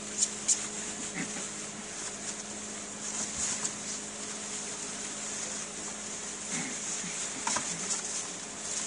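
Bedlington terrier puppies giving a few faint whimpers and squeaks over a steady low hum and hiss, with two sharp clicks near the start.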